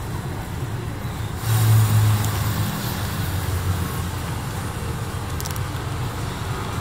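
Steady low engine rumble of road traffic, with one vehicle passing louder about a second and a half in.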